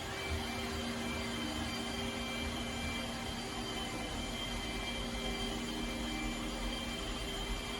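iRobot Roomba Combo j7+ robot vacuum running: a steady motor whir with a low hum and a high whine held throughout.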